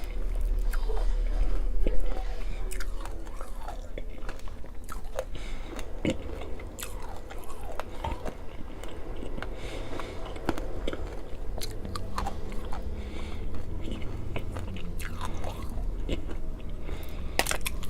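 Close-miked chewing and biting of Nerds Rope candy, the tiny hard Nerds coating crunching and crackling between the teeth over wet gummy chewing, with many scattered clicks.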